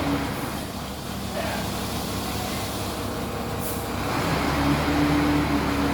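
Engine of a heavy earth-moving machine running steadily while spreading sand, its hum easing off after the start and building again in the second half.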